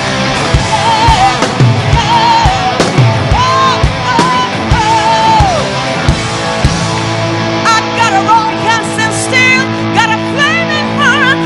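Live rock band with a female lead vocalist: a wavering sung melody over steady drum beats. About seven seconds in the drums drop out, leaving a held chord under high, wavering vocal runs.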